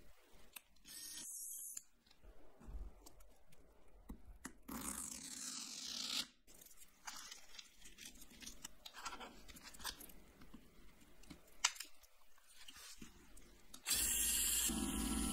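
Lego Technic pieces and sandpaper being handled, with scattered clicks, rustles and a stretch of scraping. About 14 s in, a Lego electric motor switches on and runs steadily, spinning a sandpaper-covered wheel.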